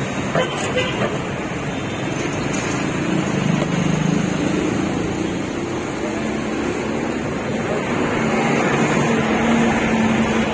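Jeepney engine running under steady road and traffic noise heard from inside the open-sided passenger cabin. Its hum rises in pitch past the middle and grows a little louder.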